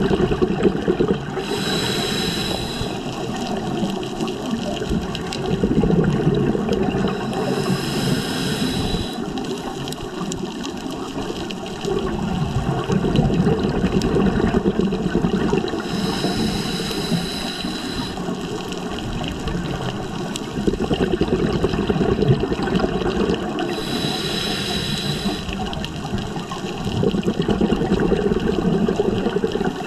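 Scuba diver breathing through a regulator underwater, four breaths in all. Each breath is a short hissing inhale with a faint whistle, then a longer rumble of exhaled bubbles.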